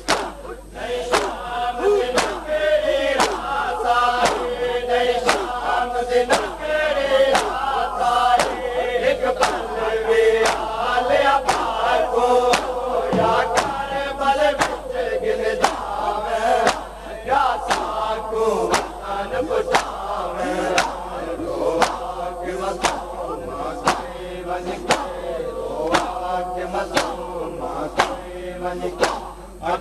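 Crowd of male mourners chanting a noha lament together, over a steady beat of sharp chest-beating slaps (matam) a little faster than one a second.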